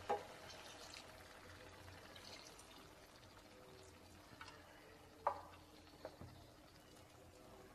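Cornflour slurry pouring into a pan of simmering onion-and-capsicum sauce, faint, with a sharp tap about five seconds in.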